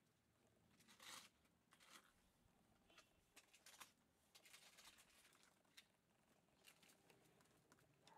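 Near silence with faint, scattered scuffs and rustles of Shiba Inu puppies' paws scrabbling on a concrete path as they play-wrestle.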